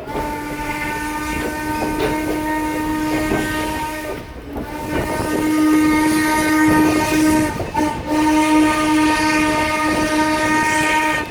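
Steam whistle of Norfolk & Western 4-8-0 locomotive No. 475, a multi-note chord sounded in three long blasts, with a short break about four seconds in and a brief one near eight seconds.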